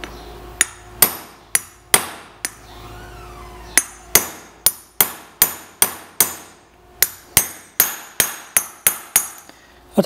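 Hammer blows on a 22 mm socket pressed against a new ball bearing's outer race, driving the bearing into a motorcycle's aluminium front wheel hub. There are a few spaced metallic strikes, a short pause, then a quicker steady run of about two and a half blows a second. The blows go on until the bearing seats, and a change in the sound of the strikes is the sign that it is fully home.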